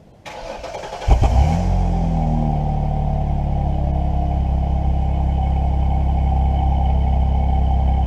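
Car engine starting, heard at the tailpipe: the starter cranks briefly, the engine catches about a second in with a short rev that falls away, then settles into a steady idle. The exhaust has no turbo whistle fitted.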